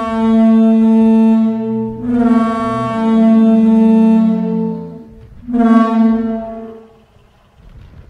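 Reconstructed Parasaurolophus call: a sound modelled from air resonating through the crest's long tubes. It comes as three long calls at a steady pitch, the first ending about 2 seconds in, the second ending about 5 seconds in, and a shorter third one near 6 seconds.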